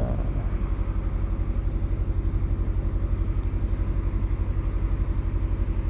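2005 Nissan Altima's four-cylinder engine idling steadily, a little fast because the engine is still cold and warming up.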